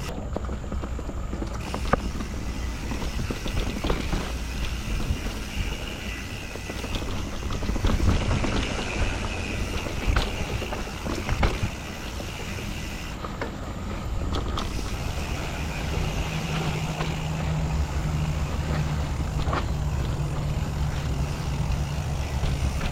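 Mountain bike riding along a dirt trail: tyres rolling and the bike rattling, with a steady rumble and scattered sharp knocks over bumps.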